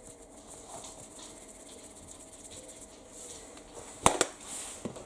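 Quiet kitchen room tone with a faint steady hum, broken about four seconds in by two sharp clicks in quick succession and a softer click just before the end, as of a container being handled on a worktop.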